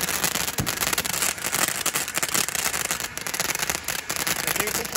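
Handheld firework fountain spraying sparks: a continuous crackling hiss packed with tiny pops.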